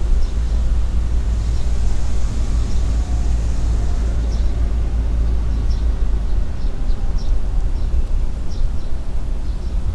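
Wind buffeting the camera's microphone: a steady low rumble that swells and dips. A few faint, short high chirps sound here and there above it.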